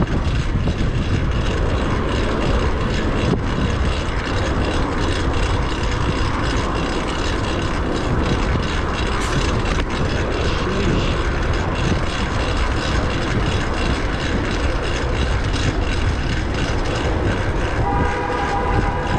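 Fixed-gear bicycle being ridden: wind on the microphone with a loud, steady chain-and-cog drivetrain whir from a new rear cog. About a second from the end a steady tone of several pitches joins in.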